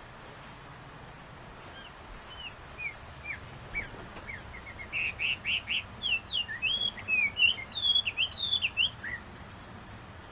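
Chinese hwamei singing: whistled, slurred notes that begin spaced out about two seconds in, then quicken into a rapid run of varied, rising and falling phrases.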